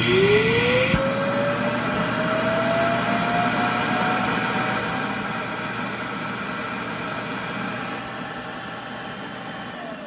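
Roomba i3+ Clean Base emptying the docked robot's dust bin: its suction motor spins up with a rising whine over the first couple of seconds, then runs loud and steady with a rushing, whining sound. It cuts off just before the end, its whine starting to fall.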